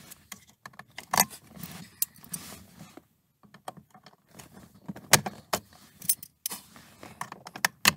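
Needle-nose pliers clicking and clinking against the metal hinge pin and coil springs of a BMW E92 M3 rear armrest as the pin is worked out. It is a string of irregular sharp metallic clicks, with a short pause about three seconds in.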